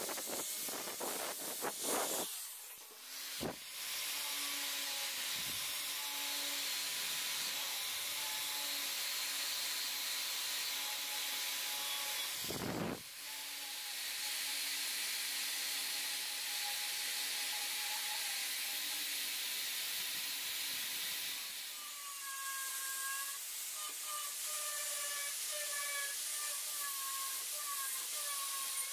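Angle grinder with a sanding disc running against the steel of a pair of lasting pincers: a steady hissing grind with the motor's whine underneath. It drops off briefly about 3 s and 13 s in.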